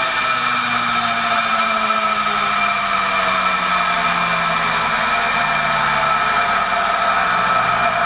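Panworld 100PX-X magnetic drive centrifugal pump motor, impeller and fan cover removed, spinning down after being switched off. A loud, steady whirring roar with several held tones that drift slightly lower, the noise the owner thinks comes from bad bearings.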